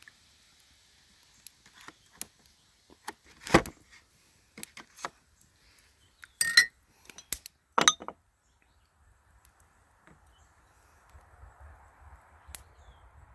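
Scattered sharp clicks and clinks at irregular intervals, the loudest about three and a half, six and a half and eight seconds in, followed by a faint steady hiss.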